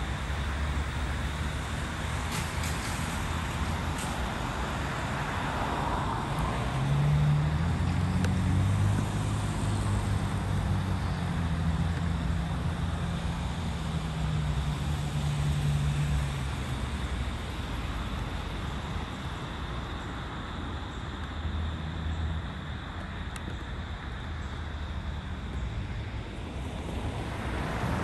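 Road traffic: a motor vehicle's engine drones steadily for several seconds in the middle, and a car passes near the end.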